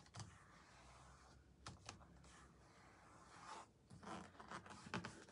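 Faint rustling and rubbing of a paper calendar picture being pressed and creased with the fingers, with a few light clicks.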